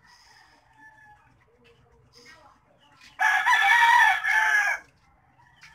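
A rooster crowing once, loudly, for about a second and a half, starting about three seconds in.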